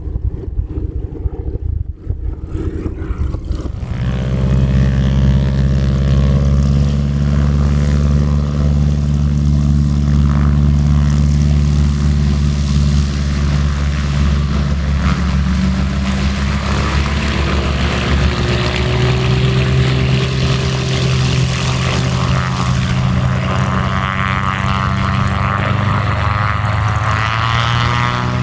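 Piston-engine propeller airplane running close by, growing much louder about four seconds in and then holding a steady, even drone, with its pitch rising near the end.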